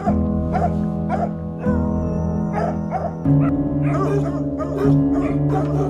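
A pack of kennelled hunting dogs barking over and over, about two barks a second, over background music of held chords that change about three seconds in.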